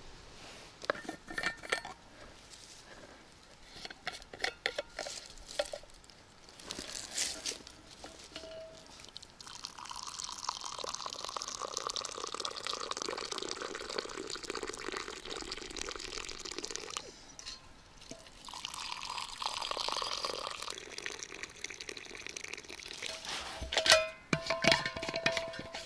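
Liquid pouring and dripping in two steady spells of several seconds, among scattered clicks and knocks that are loudest near the end.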